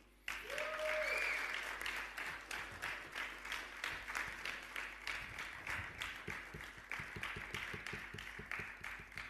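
Audience applause: many hands clapping, slowly dying down.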